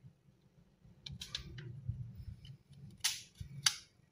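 A DDR5 laptop RAM module being handled and fitted into its slot on the mainboard: small scrapes and clicks, ending in one sharp click about three and a half seconds in, over a low steady hum.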